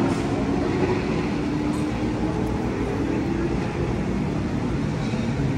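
A steady engine running, with voices faintly in the background.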